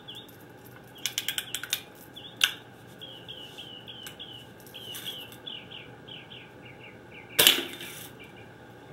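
Spring-powered Daisy Buck BB gun: a quick run of clicks about a second in as it is cocked, a single click soon after, then one sharp shot near the end, the loudest sound. Birds chirp in the background.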